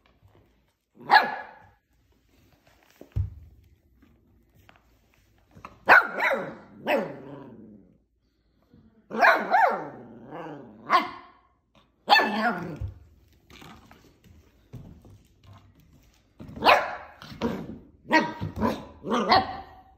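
Portuguese Water Dog puppy barking in bursts: a single bark about a second in, then clusters of barks with long gaps, ending in a quick run of barks.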